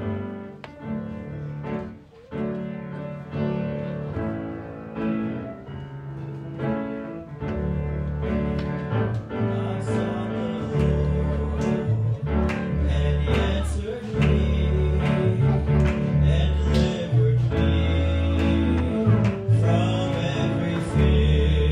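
Instrumental opening of a live church worship song: guitar and other instruments playing, with a deep bass coming in about seven seconds in and the band growing fuller and louder.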